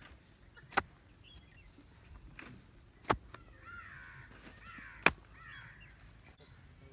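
Three sharp knocks about two seconds apart as a wooden stake is pounded into the soil with a hand-held stone. Birds call in the background between the second and third knocks.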